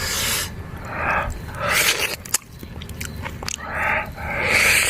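A person biting and chewing food from a fire-baked pineapple with rice, in several separate bursts with small clicks between them; the rice is undercooked and still raw.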